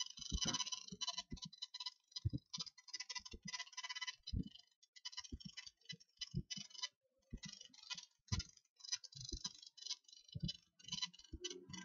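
Irregular clicking and light knocks, many in quick succession with uneven gaps.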